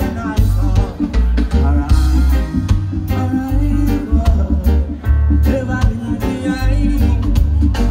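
Live reggae band playing, with a heavy bass line and sharp, regular drum hits.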